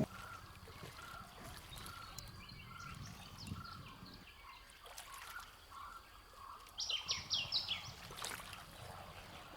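Outdoor birdsong: a soft note repeated steadily about every half second, with a louder quick phrase of high chirps about seven seconds in, over a faint trickle of water.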